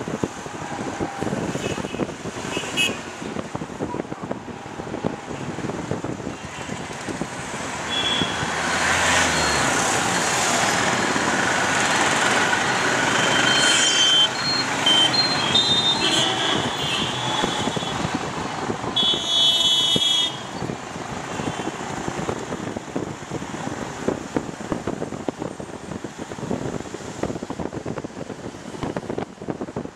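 City street traffic heard from a moving vehicle: engines and road noise, louder through the middle stretch, with several vehicle horns honking, a cluster of short toots about halfway and one longer blast about two-thirds through.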